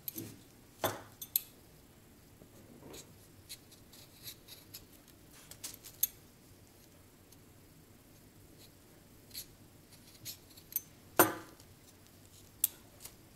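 Metal vegetable peeler scraping the skin off a raw potato in short, irregular strokes, with a few light clicks and one louder scrape near the end.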